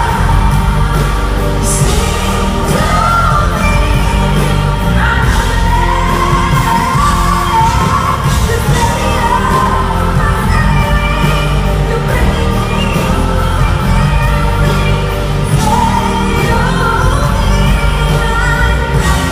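A live pop ballad: a female lead singer holding and gliding through sung notes over a band's steady accompaniment, heard through a phone's microphone in a large hall.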